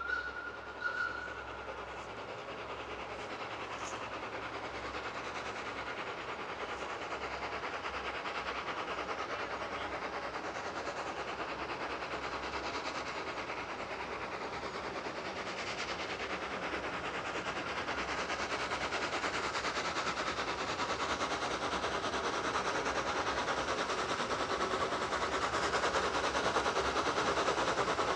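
Double-headed steam train, the vertical-boiler tram engine Lucie No 8 and an LNER J27 0-6-0, approaching. A steam whistle ends about a second in, then the locomotives' working and the train's running grow steadily louder as it draws near.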